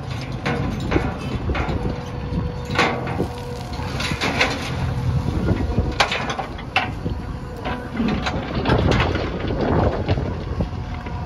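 Backhoe loader's diesel engine running steadily, with scattered metallic clanks and scrapes from the machine working.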